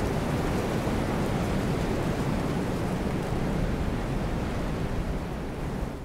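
Ocean wind and surf ambience: a steady, dense rush of wind and waves, heavy in the low end, beginning to fade out near the end.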